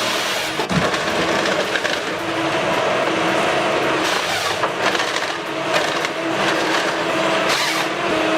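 Heavy engine-driven wood chipper running steadily under load, with bursts of wood being crunched and shredded as material is fed in.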